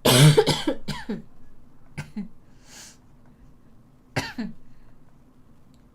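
A woman coughing: one loud cough at the start, then smaller single coughs about one, two and four seconds in. It is a lingering cough that she says won't die down.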